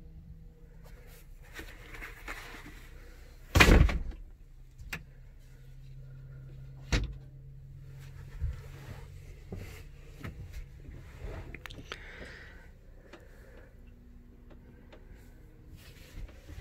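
Knocks and bumps as someone moves about inside a small fibreglass boat cabin. One loud thump comes a few seconds in, followed by a few sharper knocks and light clicks over a faint steady low hum.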